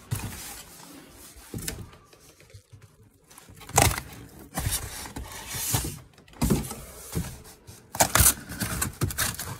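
Corrugated cardboard moving box being folded and pushed into shape by hand: flaps scraping, rubbing and creasing, with a few sharp knocks, the loudest about four seconds in and another near the end.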